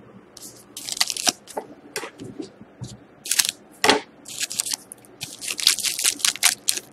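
A foil Panini Titanium hockey card pack crinkling in the hands and being torn open: a run of sharp crackles, scattered at first and coming thick and fast near the end as the wrapper tears.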